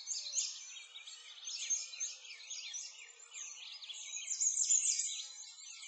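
A chorus of many songbirds chirping at once, quick high chirps overlapping without a break.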